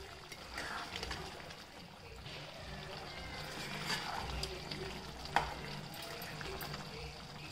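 Slotted spatula stirring chicken pieces through a simmering, watery masala in a pan: wet sloshing and bubbling, with scrapes and a sharp knock of the spatula against the pan about five seconds in.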